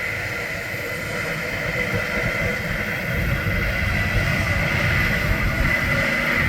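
Harvest machinery running steadily: a deep engine rumble with a steady high whine above it, growing louder about three seconds in.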